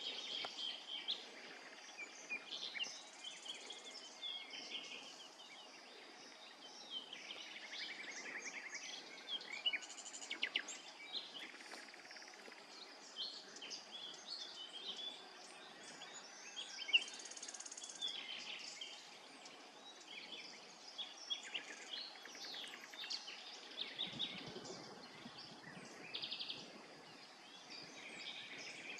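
Background chorus of several small birds chirping and trilling, with a few short high insect buzzes.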